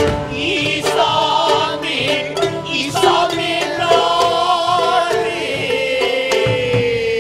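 Gidayū music of bunraku: chanted singing accompanied by plucked shamisen, with a long held vocal note near the end.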